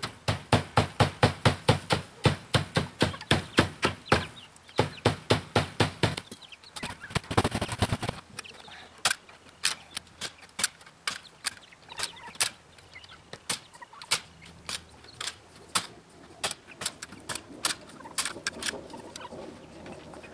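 Hand staple gun firing staples one after another into a wooden frame through chicken wire, sharp snaps about three a second, a quick run of snaps about seven seconds in, then slower, irregular shots.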